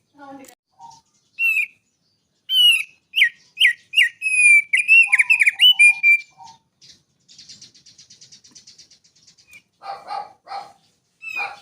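Songbird singing: a run of loud, sharp downslurred whistles, then a fast buzzy trill, then a few harsher chattering notes near the end.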